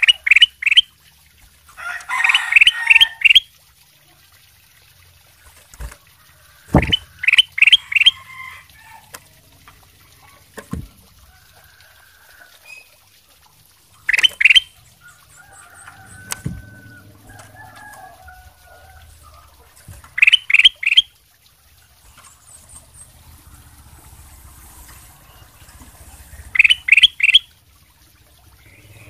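Ruby-throated bulbul (kutilang emas) singing: short bright phrases of three or four quick rising notes, repeated every few seconds. A few soft low thumps fall between the phrases.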